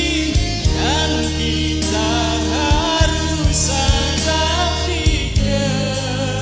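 Amplified pop ballad: a man singing into a microphone over keyboard-band backing with held bass notes and drum hits.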